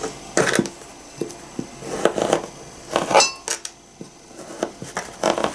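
Small kitchen knife clicking and clinking against a glass salad bowl as pear pieces go in, a few separate knocks, one with a brief glassy ring about three seconds in; later the knife cuts quietly through a soft pear held in the hand.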